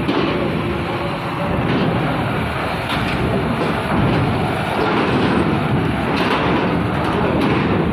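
Heavy truck's diesel engine running under load as the low-bed trailer rolls over a steel ferry loading ramp, with a few short clanks.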